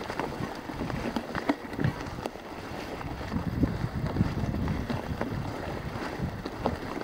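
Mountain bike rolling down a forest dirt trail: tyres crunching over ground and roots, with irregular knocks and rattles from the bike over bumps and wind noise on the chest-mounted microphone.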